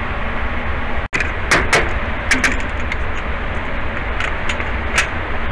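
Steady rushing noise of an indoor shooting range's ventilation, with about seven short, sharp clicks and cracks scattered through it.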